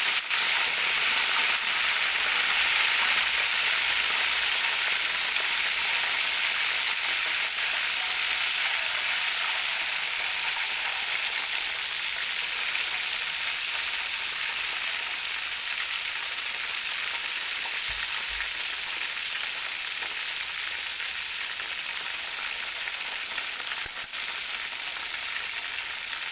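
Chicken pieces frying in hot oil in a wok: a steady sizzle that slowly gets quieter. A single brief tap comes near the end.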